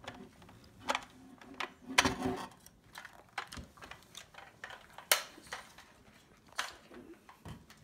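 Small plastic toy kitchen playset being handled: a string of sharp clicks and clacks as its little drawers and doors are opened and shut and the unit is picked up, with the loudest clacks about two seconds and five seconds in.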